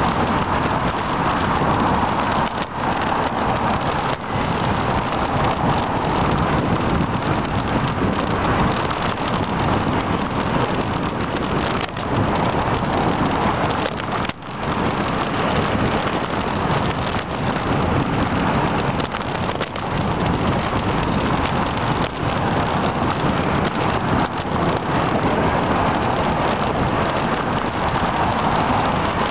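Steady rushing wind and road noise on a camera riding on a moving bicycle, with a brief dip about halfway through.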